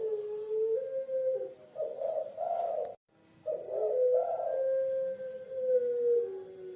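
Puter pelung dove cooing: low coos with short notes at first, then after a brief break about three seconds in, one long drawn-out coo that falls slightly in pitch near the end.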